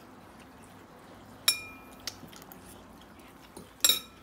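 Metal forks clinking against ceramic bowls while eating: one sharp, ringing clink about a second and a half in, a lighter tap soon after, and a quick cluster of clinks near the end.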